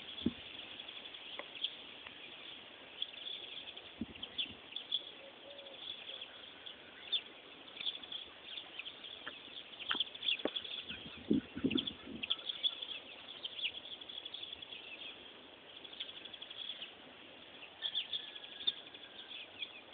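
Small birds chirping on and off throughout, with a pigeon cooing once, about eleven seconds in.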